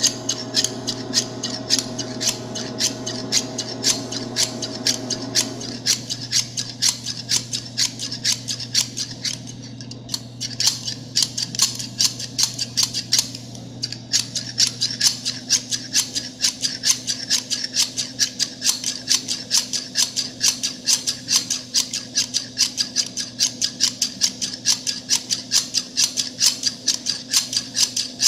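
Metal scissors snipping over and over in a quick, even rhythm of about four cuts a second. A steady low hum runs underneath.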